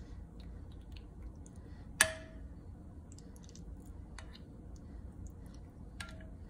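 Metal spoon clinking against a glass bowl while spreading thick yogurt marinade over raw chicken: one sharp clink with a short ring about two seconds in, and a few fainter clinks later, one near the end.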